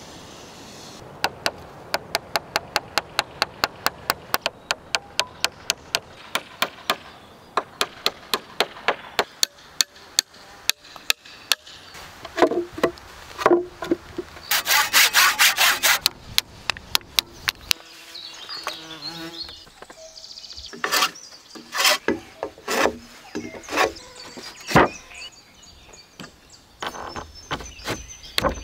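Hand work on timber: a long run of sharp, even strokes at about four a second, then a loud rasping burst like sawing lasting a second or two, then scattered wooden knocks as timbers are handled and set down.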